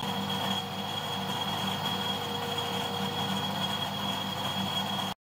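Metalworking lathe running steadily with a constant high whine over a lower hum. It cuts off abruptly just before the end.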